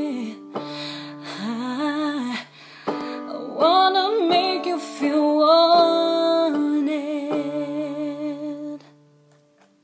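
A woman singing a wordless closing phrase in three short runs over held keyboard chords; the last chord dies away near the end.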